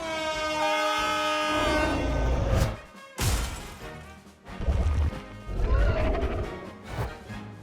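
Cartoon soundtrack: a short descending musical phrase, then a crash about three seconds in, followed by heavy low rumbling sound effects.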